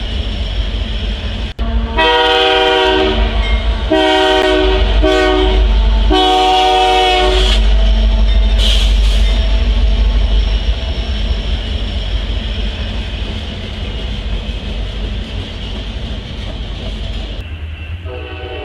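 Freight train's diesel locomotive air horn sounding the grade-crossing signal: long, long, short, long, each blast a chord of several notes. Under it, the steady low rumble of the passing locomotives, fading from about ten seconds in.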